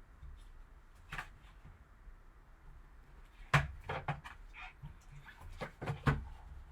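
A sealed trading-card box and its card being opened and handled: a scattering of sharp crinkles, clicks and taps, mostly in the second half, the loudest about halfway through.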